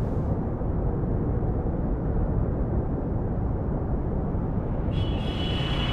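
Steady low rumble of a taxi cabin, the car's engine and road noise heard from inside. About five seconds in, a high ringing tone enters over it.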